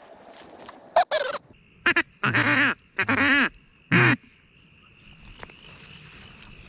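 A run of five loud, nasal duck quacks between about one and four seconds in, two short, two drawn-out and a short last one.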